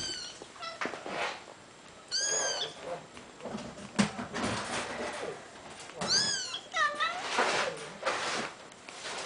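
Young kittens mewing in high, thin calls that rise and fall in pitch, several times over. A single sharp knock comes about four seconds in.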